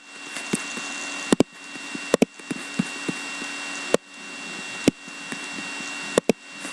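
Scattered light clicks and knocks, about ten at irregular spacing, from small objects being handled, over a steady background hiss with a faint high whine.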